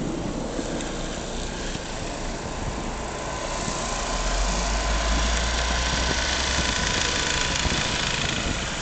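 Motor vehicle engine running steadily, with a low rumble, growing louder about a third of the way in.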